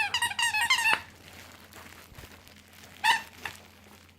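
Squeaky dog toy squeezed in a quick run of about half a dozen high squeaks, then one more squeak about three seconds later.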